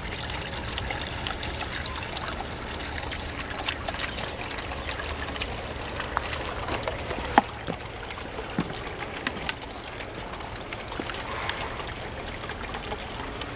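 Small garden-pond fountain trickling and splashing steadily onto the water surface, a little fainter in the second half.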